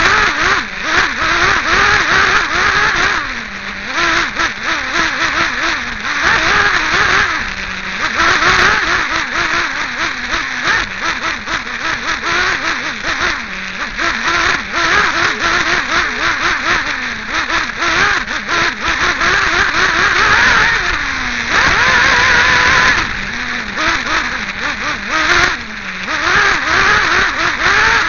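Nitro glow engine of a Team Associated RC8B 1/8-scale buggy, heard from on board, revving high and dropping back over and over as the throttle opens and closes around the track.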